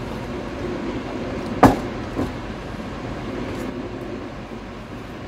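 Water poured from a jug into a bowl of gram flour and spices, then a metal spoon mixing it into batter. A sharp knock comes about a second and a half in, with a fainter one just after, over a steady background hum.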